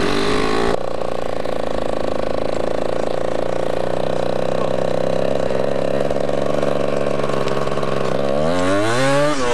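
Yamaha DT 125's single-cylinder two-stroke engine running steadily at low revs, then revved in several quick rising and falling blips near the end.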